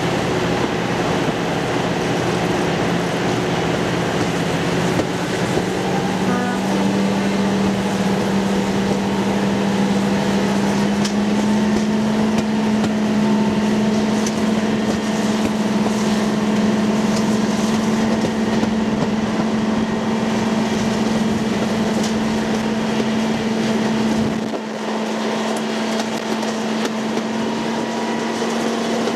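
Diesel locomotive engine running steadily with a strong even note that rises slightly about six seconds in and then holds.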